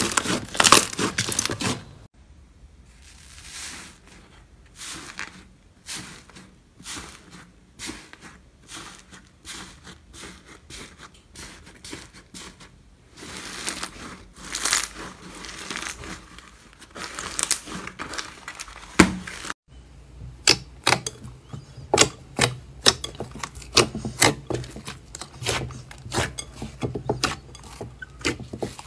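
Hands squeezing and kneading slime, making dense runs of sticky crackles, pops and squelches. The texture of the crackling changes abruptly about 2 s in and again just before 20 s, as a green slime gives way to a pink clay slime with crunchy white pieces and then a glossy pink-and-blue slime.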